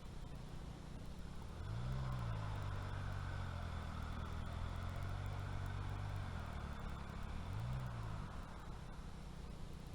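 An engine running, its pitch rising about two seconds in, holding steady, then dipping and climbing again near the end.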